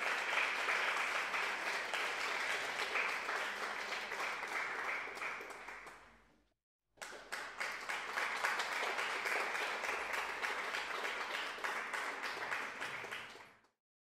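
Applause: dense clapping in two stretches, each fading away and then cut off abruptly, with a short silent gap between them.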